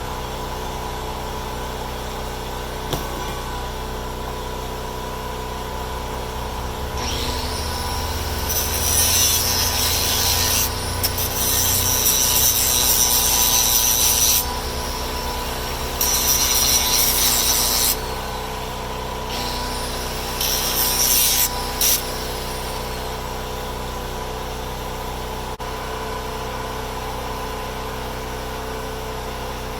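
MIG welder arc crackling in three bursts, the first about seven seconds long and the next two about two seconds each, over a small generator running steadily.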